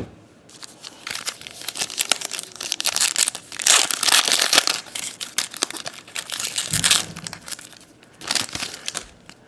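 Plastic trading card pack wrapper being torn open and crinkled by hand, a dense crackling that is loudest about four seconds in.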